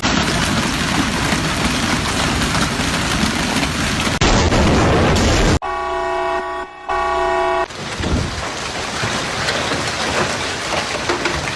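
Hail and rain pounding down hard in a steady, dense clatter. A vehicle horn sounds twice a little past the middle.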